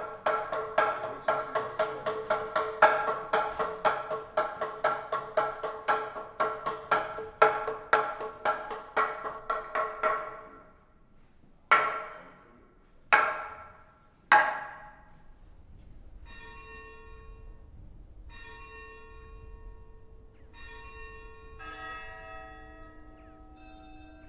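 A monastery semantron struck rapidly with a mallet, about three strikes a second with a ringing, pitched knock, in the Orthodox call to prayer. It stops about ten seconds in and is followed by three slower single strikes that ring out. After them come soft, held pitched tones in short notes.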